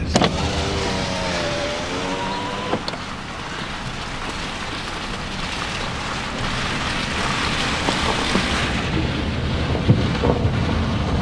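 A car driving on wet, hail-strewn streets: a steady rush of tyre and wind noise heard from inside the cabin. A short wavering tone sounds in the first few seconds.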